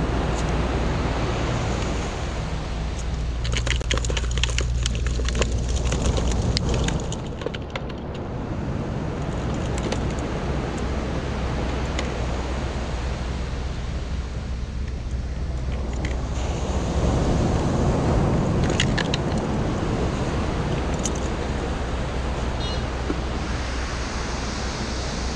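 Steady rush of surf and wind buffeting the microphone, with scattered small clicks a few seconds in and again past the middle.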